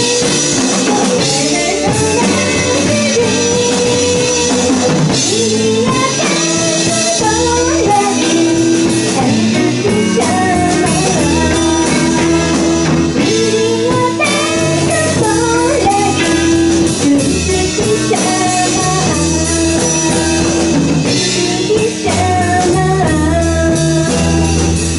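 A live rock band playing: a woman singing over electric guitars and a drum kit.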